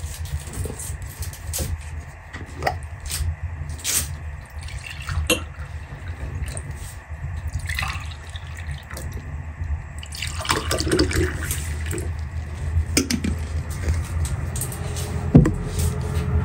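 A drink poured from a glass jar into cut-glass tumblers: liquid splashing and trickling into the glasses, with light clinks of glass, heaviest about ten to twelve seconds in. A low steady rumble runs underneath.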